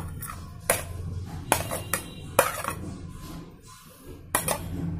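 Steel spoon clinking against a plate and the rim of a stainless steel mixer jar as chopped tomato is scraped into the jar: about four sharp clinks and some lighter taps over a low steady hum.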